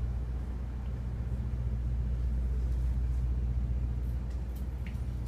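Steady low droning hum of a tour bus's running machinery heard from inside the bus, with a few faint clicks near the end.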